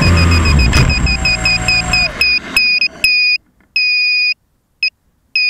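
An electronic beeper sounding short high beeps, evenly spaced at about four a second, over a low rumble. About three seconds in the rumble drops away and the beeps become longer, about half a second each, with pauses between them.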